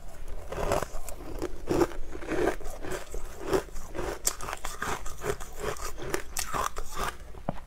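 Close-miked crunching and chewing of a mouthful of frozen crushed ice, in irregular crisp crunches about two or three a second, with a spoon scraping into the ice.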